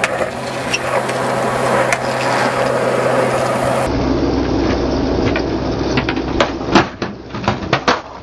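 Skateboard wheels rolling on smooth concrete, a steady rumbling roll with a low hum under it. After a cut about four seconds in, a string of sharp clacks as the board is popped and slapped against the concrete.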